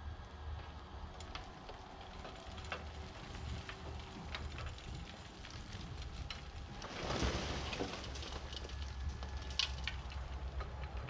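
Dump truck tipping a load of sandy dirt, over the low running of its engine as the bed rises; loose dirt and stones patter and click, and about seven seconds in the load slides out of the bed in a louder rush.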